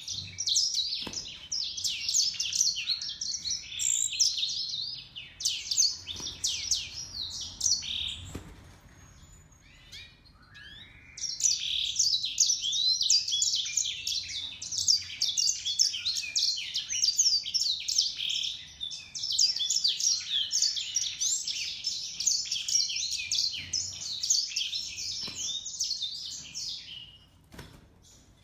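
Small finch singing a fast, high-pitched, continuous twittering warble. It drops away for a few seconds about a third of the way in, then resumes and stops shortly before the end.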